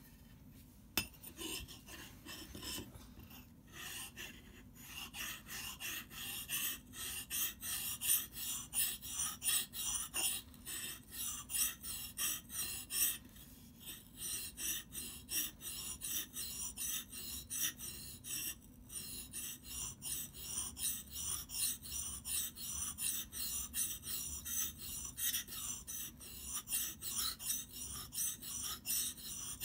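Hatchet blade being sharpened on a wet whetstone: a steady run of quick back-and-forth grinding strokes, about two or three a second. A single sharp click comes about a second in.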